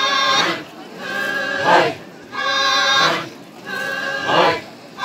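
A group of voices chants in unison in a steady repeating phrase: a held note, then a louder, rougher cry, about once every second and a half.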